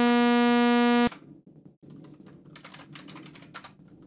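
Buzzy tone from an additive-synthesis software synth: dozens of summed sine harmonics building a sawtooth-like wave, held steady and then cut off suddenly about a second in. After it, quieter typing on a computer keyboard.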